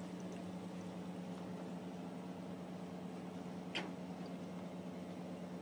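Street-stall kitchen ambience: a steady low mechanical hum with potato vadas deep-frying in a large kadai of hot oil. A single sharp click comes a little before four seconds in.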